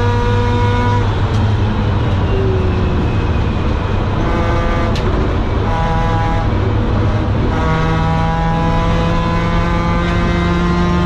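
Mazda RX-8's 192 PS four-port Renesis twin-rotor engine, breathing through a homemade long-tube exhaust with a Borla rear silencer, held at high, steady revs. The note drops off about a second in, giving way to a rougher stretch of off-throttle and lower-revving noise. From about three-quarters of the way through it pulls again, the pitch climbing steadily under acceleration.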